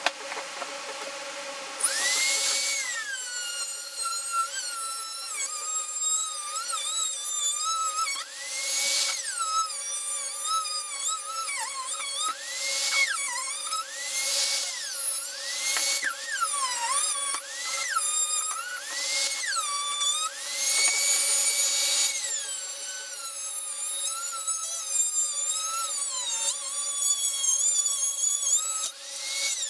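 High-speed rotary tool cutting or grinding in repeated passes: its whine rises to full speed, then drops and wavers each time it bears into the material.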